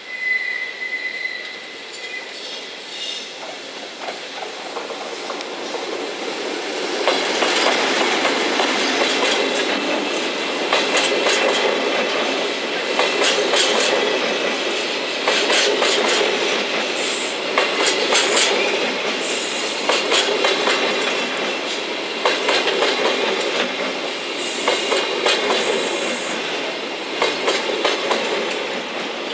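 Engineering freight train of Chiki flatcars loaded with long rails, hauled by an EF65 electric locomotive, rolling past. The wheels click over the rail joints, with a few brief high wheel squeals. The noise grows louder about seven seconds in as the wagons come alongside.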